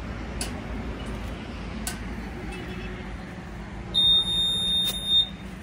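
Digital tyre-inflator air machine sounding one long, high electronic beep of just over a second, about four seconds in, the machine's signal that the tyre has reached its set pressure. A steady low background hum runs underneath.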